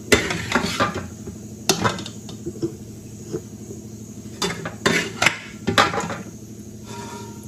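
A metal spoon scraping and clinking against a metal cooking pot in irregular strokes as masala is spread over the layered rice, with bursts of strokes near the start, around two seconds in, and again past the middle.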